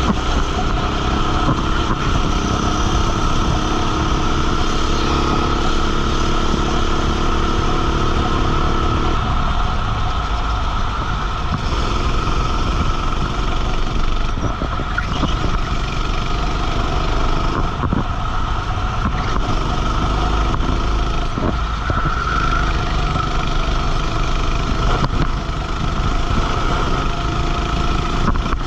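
Racing kart's engine running hard on track, heard from on board, its revs rising and falling.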